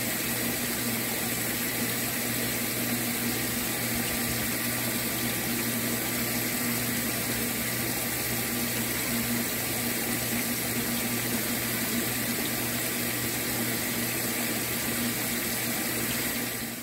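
Steady rush of water splashing and churning in a tilapia tank, with a constant low hum under it.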